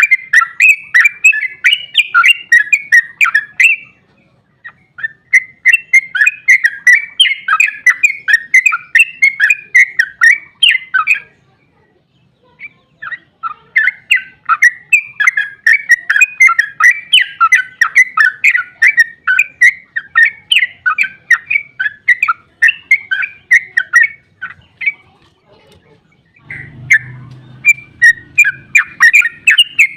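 Yellow-vented bulbul (trucukan) singing its long, rapid chattering song in several phrases of a few seconds each, with short pauses between them. A brief low rumble sits under the song near the end.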